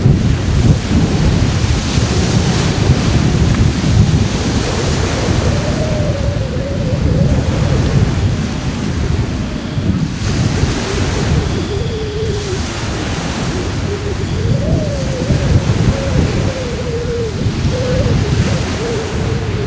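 Strong wind buffeting the camera microphone: a loud, continuous low rumble.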